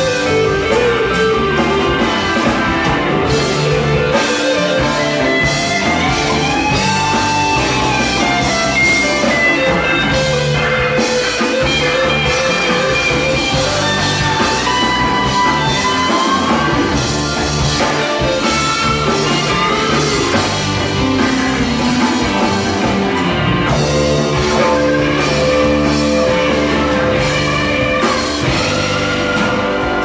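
A live rock band playing: electric guitars, bass and drum kit, with a melody line that slides up and down between notes over the band.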